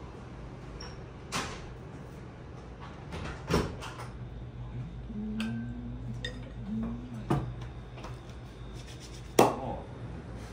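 Scattered knocks and clatter of kitchenware at a sushi counter over a low steady hum, the sharpest knock coming near the end.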